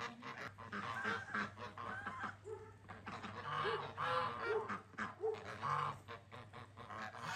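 A group of birds calling over and over in short, overlapping calls.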